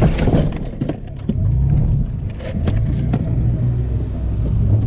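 Off-road truck engine running at low speed, heard from inside the cab, with a handful of sharp knocks and clunks as the truck rolls over a rocky dirt trail.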